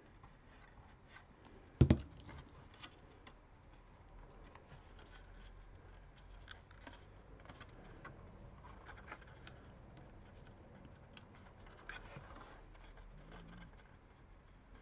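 A single sharp knock on the desk about two seconds in, then faint rustling and small clicks of card being handled and pressed.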